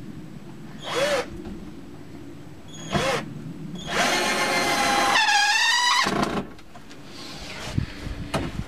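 Cordless drill-driver driving self-tapping screws into wooden railing timber: two short blips of the motor, then one longer run of about two and a half seconds whose whine dips under load before stopping.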